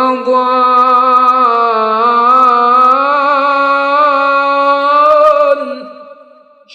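A male Quran reciter's voice holding one long melodic note in tajweed-style recitation, the pitch turning gently. The note fades out about a second before the end, just before the next word starts.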